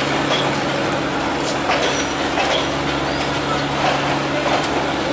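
Diesel locomotive of a passenger train running with a steady low hum, under the chatter of a crowd of people around the train.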